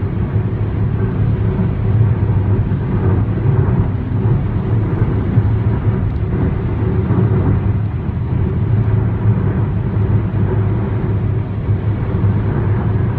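Steady low rumble of tyres and engine heard inside a car's cabin while it cruises at freeway speed.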